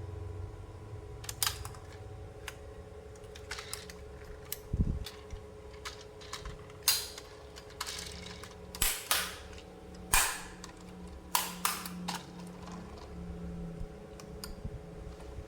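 Irregular sharp clicks and taps of hard plastic toy pieces being handled, about a dozen spread unevenly, with a dull thump about five seconds in, over a faint steady hum.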